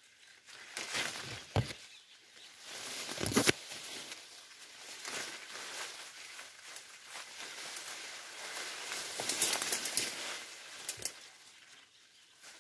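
Leaves and branches of a leafy shrub rustling as a hand pushes through the foliage, with a few sharp clicks. The loudest clicks come about three and a half seconds in and again around ten seconds in.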